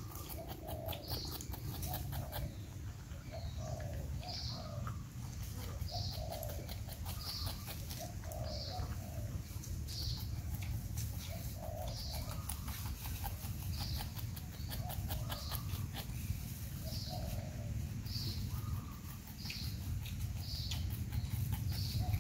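A porcupine chewing fruit, giving many small crunching clicks. A bird calls over and over in the background, a short high chirp about once a second, and a steady low rumble lies underneath.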